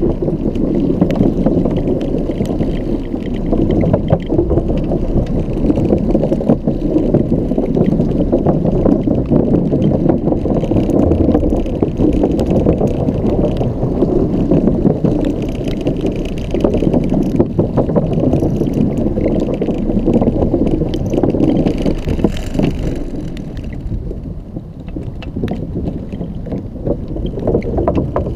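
Xiaomi M365 electric scooter rattling and rumbling as it rides over a rough, bumpy surface, with constant jolting clatter. It eases off for a couple of seconds near the end.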